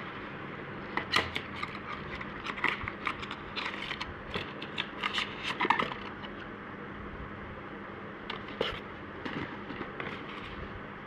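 Skin care packaging being handled and unwrapped: irregular crinkles, rustles and sharp clicks, thickest in the first half, then a few more near the end.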